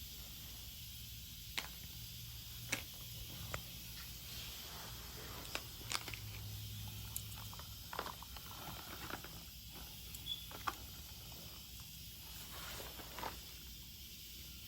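Small white stones clicking and scraping against each other and a toy bulldozer's plastic scoop as it picks them up, in about a dozen scattered light clicks over a faint hiss.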